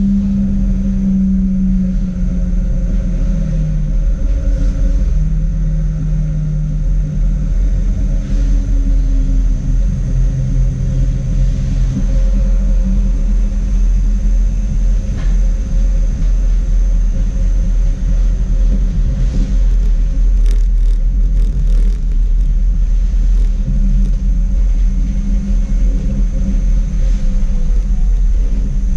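Schindler Waggon Be 4/6 tram heard from inside the car while running: a steady low rumble of steel wheels on the rails, with a motor hum whose pitch steps up and down as the tram speeds up and slows. A short run of clicks and rattles comes about twenty seconds in.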